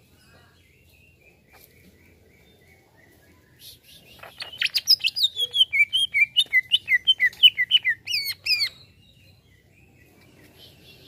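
Greater green leafbird singing: faint chirps, then about four seconds in a loud run of quick sweeping notes, several a second, that stops abruptly after about four and a half seconds.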